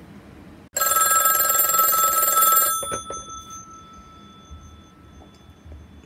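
A 1960s model 500 rotary dial telephone's bell ringer rings once on its gongs for about two seconds, starting under a second in, then the gongs ring on and slowly fade. It is a test ring on an incoming call, showing the phone converted for a VoIP line rings properly.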